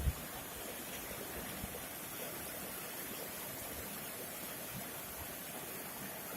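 River flowing after rain: a steady, even rush of water. A brief low thump sounds at the very start.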